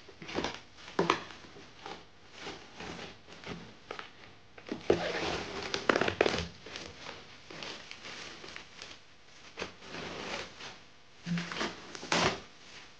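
Plastic packaging crinkling and crackling as it is pulled off a metal poster and handled, in irregular bursts. The busiest stretch comes about five to six and a half seconds in.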